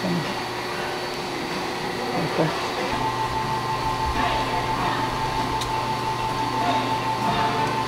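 A steady machine hum with a constant whine starts about three seconds in, with a single faint click about halfway through.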